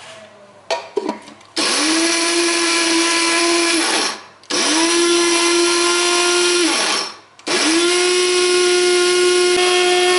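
Small electric spice grinder run in three pulses of a few seconds each, its motor whining up to speed and winding down in between, as it grinds dry fried onions into powder. A few clicks come from the lid being fitted just before the first pulse.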